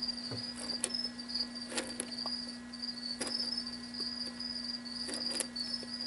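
A cricket chirping in a steady high-pitched trill, over a low steady hum, with a few sharp clicks about one to two seconds apart.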